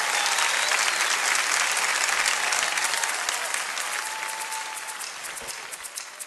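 Audience applauding after a song, the applause fading away toward the end until only a few separate claps stand out.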